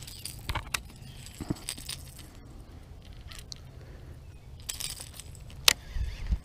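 Light metallic clicks and jingles, scattered and irregular, from a Strike King KVD Splash Popper's treble hooks and hardware being handled in the fingers. A couple of low bumps of handling near the end.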